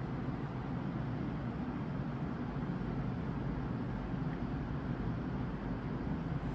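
A steady, low machine rumble.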